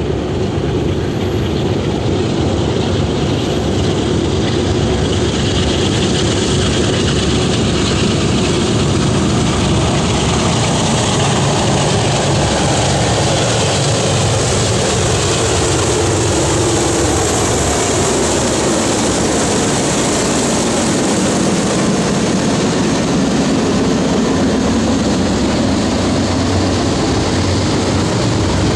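Norfolk Southern freight train's diesel locomotives approaching and running past, their engine pitch falling as they go by, then the steady rumble of tank cars rolling along the rails.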